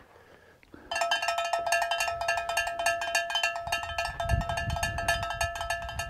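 A fast, jingling run of bell-like strikes, the notification-bell sound effect of a subscribe-button animation. It starts about a second in and rings on at the same pitches for about five seconds.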